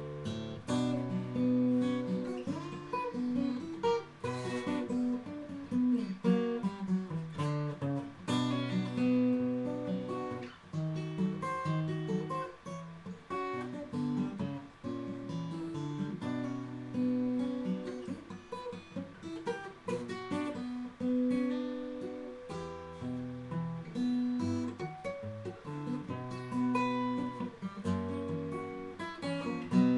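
Martin M-38 steel-string acoustic guitar with Elixir Nanoweb strings, fingerpicked solo: a ragtime piece with bass notes under a plucked melody.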